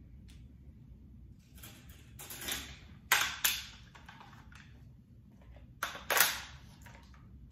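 Metal clacks and sliding sounds of a gas blowback M4-style airsoft rifle being handled after a buffer swap: two sharp clacks about three seconds in, then a magazine clicking into the magazine well near six seconds.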